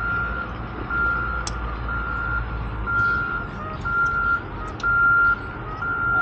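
Vehicle backup alarm beeping a steady high tone about once a second, over a low rumble.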